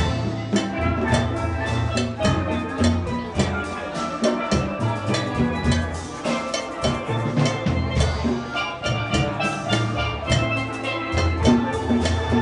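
Steel band playing live: many steelpans struck with rapid ringing notes carrying melody and chords, over deep bass-pan notes and percussion keeping the beat.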